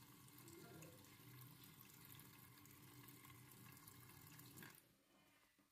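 Thin stream of water from a kitchen tap running faintly into a stainless steel sink, steady, then stopping abruptly near the end.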